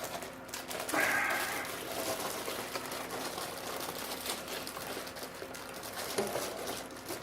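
Irregular rustling and crinkling of packaging with small knocks as a PC power supply and its cables are unwrapped, with a brief louder rustle about a second in.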